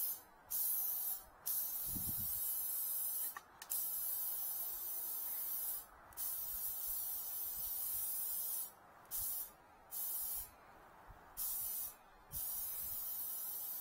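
Compressed air hissing through a tire-inflator gun with a gauge into an expansion tank's air valve, raising the tank's air pre-charge to a little over 3 bar. It comes in about eight bursts of one to two and a half seconds each, with short pauses between them.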